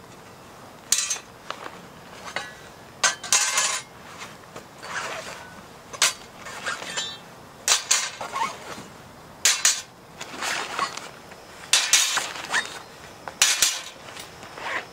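Irregular metallic clinks and knocks, about a dozen sharp hits, a few of them ringing briefly, like hard metal gear being handled and set down.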